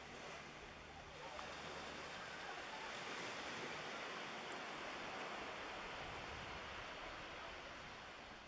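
Small waves washing on the shore, a soft rushing that swells about a second in and eases near the end.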